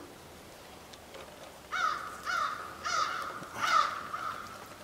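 A bird cawing four times in quick succession, starting a little under two seconds in.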